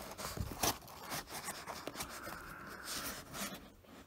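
Knife blade cutting through packing tape along the side seam of a cardboard shipping box: a run of irregular scratchy, rasping strokes with a few small clicks.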